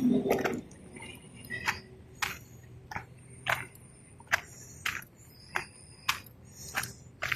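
Footsteps of a person walking: a short crunchy step roughly every two-thirds of a second.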